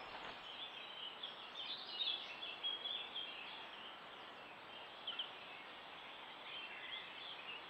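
Several small songbirds singing faintly, overlapping chirps and short phrases, a little louder about two to three seconds in, over a steady hiss.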